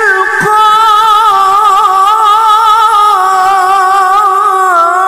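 A woman's solo voice in melodic tilawah-style Quran recitation, holding one long drawn-out note with a quick wavering ornament that steps slowly down in pitch.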